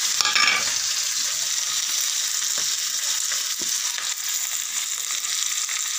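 Chopped onions sizzling steadily in hot oil in a kadai, with a few light taps of a spatula as they are stirred.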